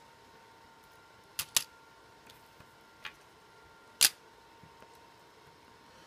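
A few short, sharp clicks over quiet room tone with a faint steady high whine: two close together about one and a half seconds in, a softer one near three seconds, and the loudest at about four seconds.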